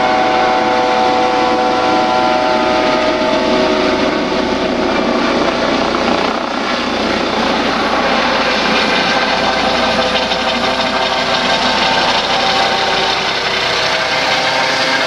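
Eurocopter EC155 twin-turbine helicopter flying low overhead, its turbine and fenestron whine steady over the rotor noise. The whine fades a little partway through and comes back stronger near the end as the helicopter passes overhead.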